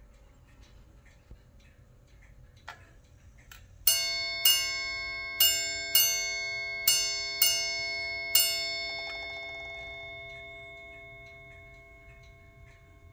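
Chelsea Shipstrike ship's clock striking seven bells, the ship's-time signal for 11:30: three pairs of strikes and then a single strike, with the bell ringing on and fading after the last one. Before the strikes the movement ticks softly and gives a small click.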